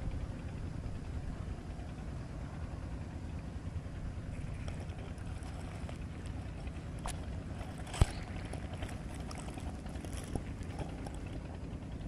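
Wind buffeting the microphone, a steady low rumble, with a single sharp click about eight seconds in.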